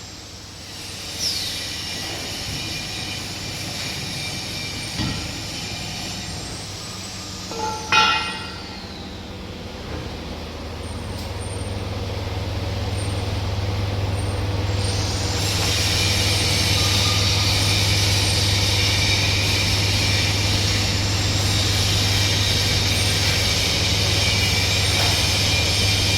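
Ground screw spiral blade welding machine running: a steady mechanical hum with a few sharp clanks in the first eight seconds. About halfway through, a louder steady hum and a strong hiss set in and hold.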